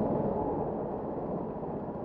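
Go-kart engine running at low speed, a steady rumble that slowly grows quieter.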